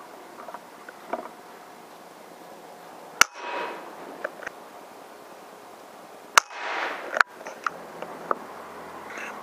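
Two PCP air rifle shots about three seconds apart, each a sharp crack followed by a brief rush of noise, with a few fainter clicks between them.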